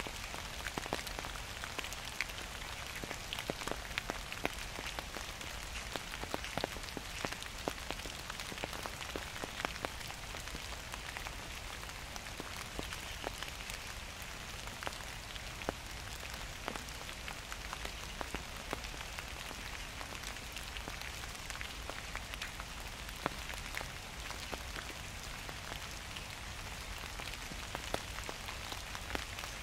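Gentle autumn rain falling steadily, with a dense, irregular patter of single drops striking close to the microphone.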